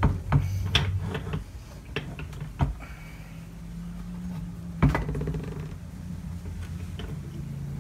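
Metal clinks and knocks of a transfer case's input shaft, sprocket and drive chain being worked loose and lifted out of the case half, the loudest knock a little before five seconds in. A steady low hum runs underneath from about three and a half seconds in.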